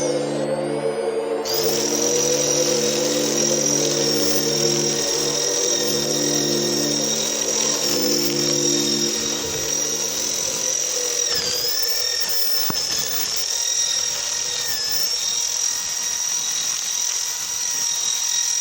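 Electric drill driving a homemade grass-cutter attachment, running steadily with a high whine. Its pitch dips briefly twice, once past the middle and again a few seconds later.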